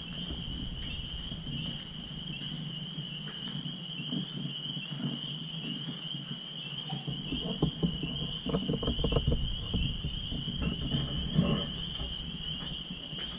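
Footsteps scuffing and crunching on gritty debris over a concrete floor, with camera handling rumble, busier in the second half. A steady high-pitched whine sits under them throughout.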